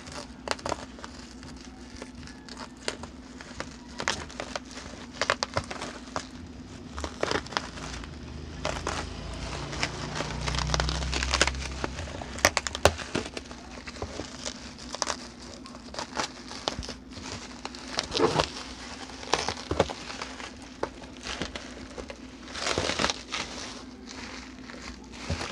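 Plastic bubble-wrap packaging crinkling and crackling as it is cut with scissors and pulled off a cardboard box, in irregular handling rustles. A steady low hum runs underneath.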